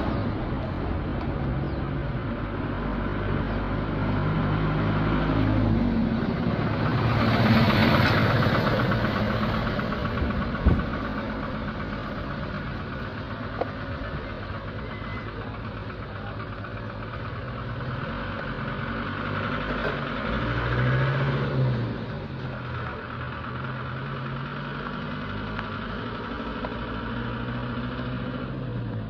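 Road traffic on a paved street: motor vehicle engines running steadily, swelling louder about eight seconds in and again just after twenty seconds.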